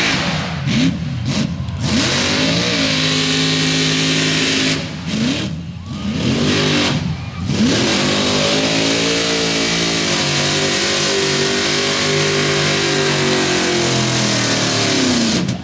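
Off-road buggy's engine revving hard under full throttle as it drives through a dirt pit: the pitch sweeps up and down with throttle lifts around a second in and again about five to seven seconds in, then holds a steady high rev before dropping off sharply at the end.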